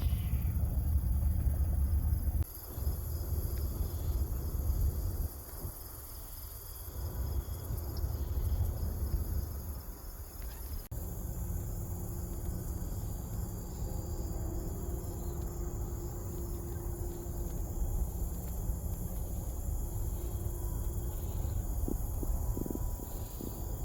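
Insects chirring steadily in high pitch, crickets among them, over a low rumble, the whole background shifting abruptly a few times.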